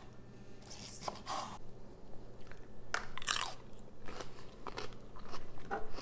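Crunchy bites and chewing of a fresh, raw sweet banana pepper: several separate crisp crunches.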